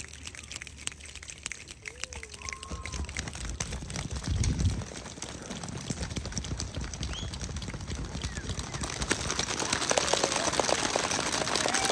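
A group making the sound of rain together: scattered clicks and taps that build steadily denser and louder, like a shower coming on.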